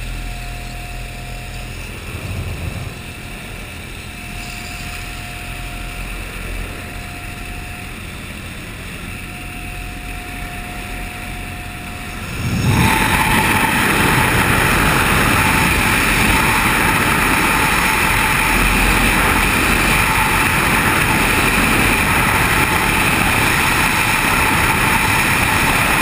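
Jump aircraft's engine and propeller drone heard from inside the cabin, with a steady tone that comes and goes. About 13 seconds in it jumps suddenly to a much louder, steady roar of engine and rushing air.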